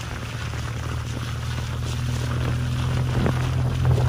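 Vehicle engine running with a steady low hum as it climbs a rough dirt mountain road, with scattered knocks and rattles from the tyres and suspension over the bumps.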